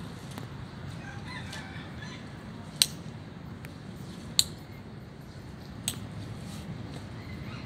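A rooster crowing about a second in, over a low steady rumble. Three sharp clicks, about a second and a half apart, are the loudest sounds.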